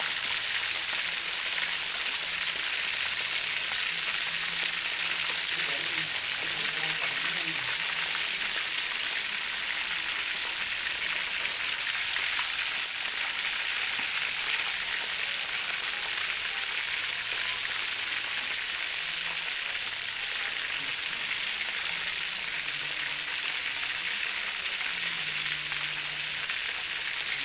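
Pork belly and chicken pieces frying in hot oil, a steady crackling sizzle.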